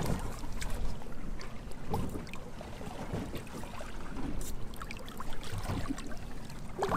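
Water lapping and sloshing against a small fishing boat's hull, with scattered light knocks and clicks of gear on the deck.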